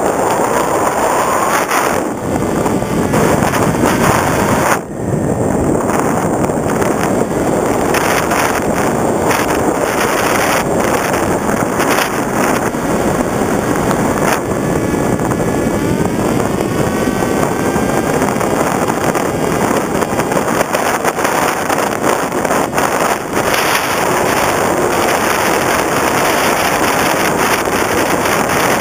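Onboard sound of an FPV Raptor RC plane in flight: wind rushing over the camera with the electric motor and pusher propeller running. The motor's pitch rises about halfway through.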